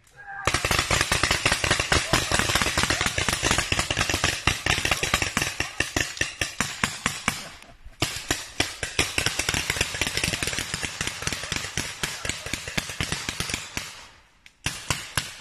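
Paintball markers firing in rapid, overlapping volleys: dense popping shots from several guns at once, with a brief lull about eight seconds in.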